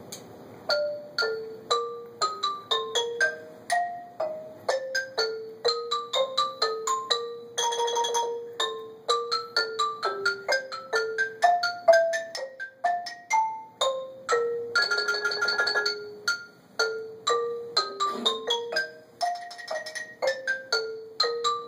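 Mallet keyboard instrument played as a duet: a melody of separate struck notes that ring on, with two stretches of fast rolled notes, one about a third of the way in and a longer one past the middle.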